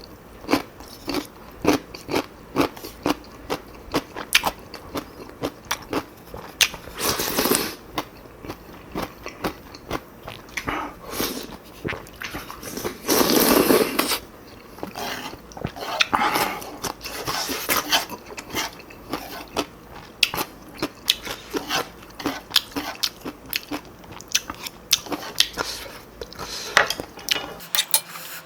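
Close-miked eating sounds: a person chewing and biting with many crisp crunches, as when eating altari radish kimchi with Chapagetti black bean noodles. There are several longer, louder noisy stretches, the loudest about halfway through.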